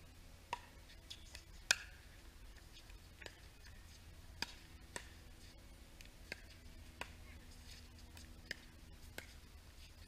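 Pickleball paddles striking a hard plastic pickleball in a rally: a run of sharp, irregularly spaced pops, the loudest near two seconds in, over a faint steady hum.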